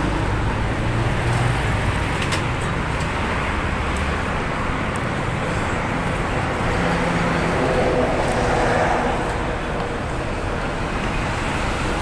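Steady street traffic: cars and vans driving past, a continuous hum of engines and tyres that swells a little about eight seconds in.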